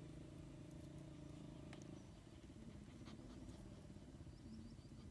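Faint outdoor ambience: a distant engine drones steadily and stops about two seconds in. Afterwards there are a few faint clicks of dry twigs being handled and some short, faint bird chirps.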